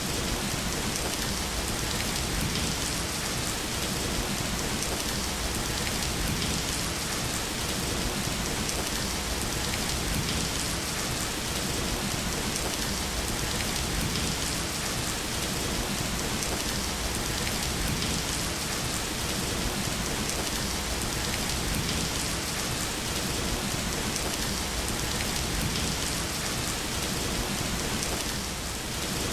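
Steady rain falling, an even hiss of many drops with no break.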